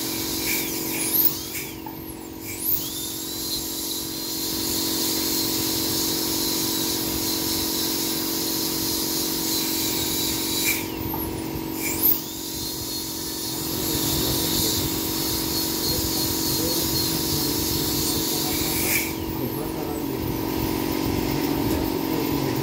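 High-speed dental handpiece (dentist's drill) running with a steady high whine while cutting an upper front tooth, likely shaping it for a porcelain cap; it winds down and starts up again three times, about two, eleven and nineteen seconds in. A steady lower hum runs underneath.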